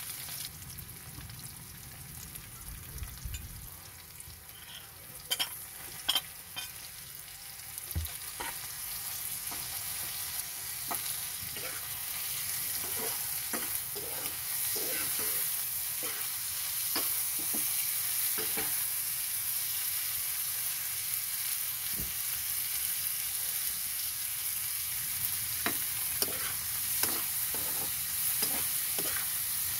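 Pork, onion and bell pepper sizzling in hot oil in a wok, stirred with a metal spatula that clicks and scrapes against the pan now and then. The sizzle grows louder about ten seconds in.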